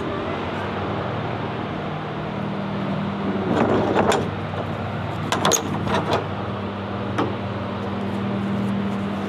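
Semi-trailer rear swing door being opened and latched back against the trailer's side, with a few metal clanks and rattles from about three and a half to six seconds in, and a single one about seven seconds in. Under it runs the steady low hum of an idling engine.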